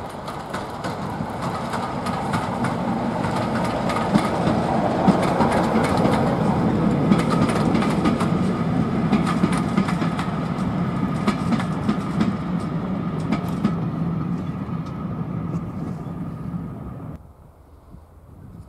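Diesel locomotive hauling passenger coaches passes close by under power: a low engine drone with a steady higher tone over it, rising to a peak midway and then easing, with quick clicks of wheels over rail joints as the coaches roll past. The sound drops away abruptly near the end.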